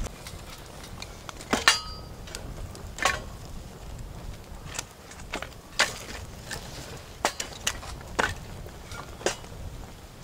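Dishes and utensils clinking and knocking at irregular intervals, about a dozen light hits. The loudest is a ringing clink near the start.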